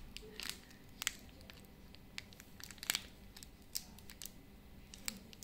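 Plastic flour packet crinkling in scattered, irregular crackles and small clicks as hands gather its top and thread a nylon cable tie around it.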